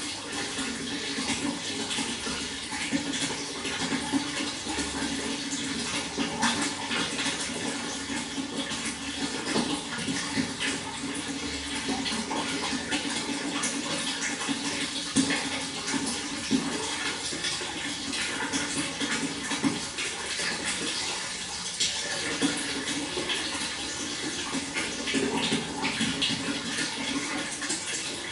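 Water flowing steadily, a continuous rushing with many small splashes throughout.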